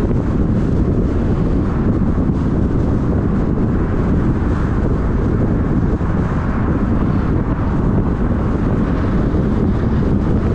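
Wind buffeting the microphone of a moving car, a steady low rumble with road noise underneath.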